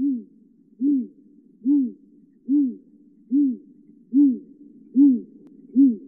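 Great grey owl hooting: a long series of deep, evenly spaced hoots, a little more than one a second, each note rising slightly and then falling away.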